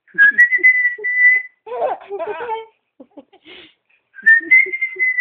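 A person whistling two long held notes, each just over a second, with a small rise in pitch, the second starting about four seconds in. In between, a baby laughs and coos in short pulsing bursts.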